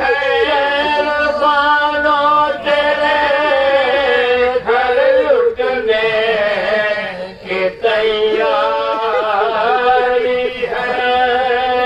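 Men chanting a mournful Urdu elegy (marsiya) for the martyrs of Karbala in long, held melodic lines, breaking off briefly past the middle.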